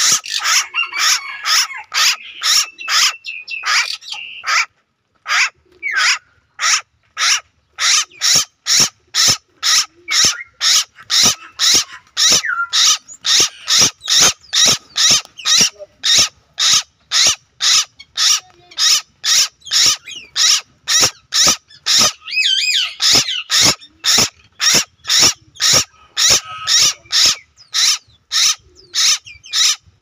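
A loud, steady rhythmic chirping call, about two chirps a second, pausing briefly about five seconds in. Birds sing over it now and then, near the start and again past the middle.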